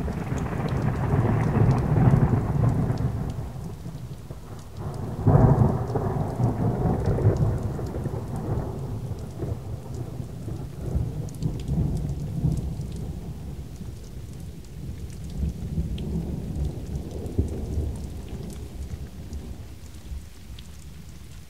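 Thunderstorm: rain falling steadily with rolls of thunder, one swelling up at the start and a sudden, louder clap about five seconds in, each rumbling away over several seconds, with fainter rumbles later.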